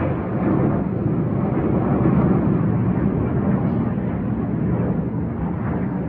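Loud, steady jet engine noise from aerobatic display jets flying overhead while trailing smoke.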